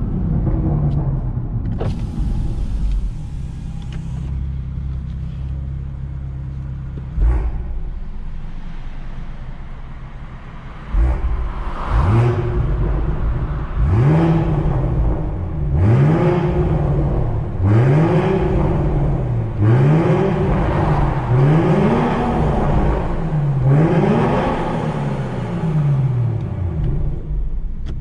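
BMW M140i's 3.0-litre turbocharged straight-six idling, with a couple of sharp cracks. From about eleven seconds in it is blipped again and again: about seven quick revs, each rising and dropping back, roughly one every two seconds.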